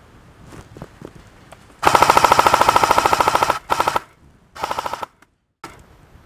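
Airsoft A&K M249 Para electric machine gun firing full-auto, with about ten shots a second and a steady gearbox whine. There is one long burst of nearly two seconds, then two short bursts, and the sound cuts off suddenly.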